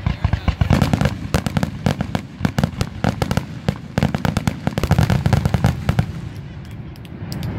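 Aerial firework shells bursting overhead in rapid succession, a dense run of sharp bangs and crackles that thins out to fewer, quieter reports in the last second or so.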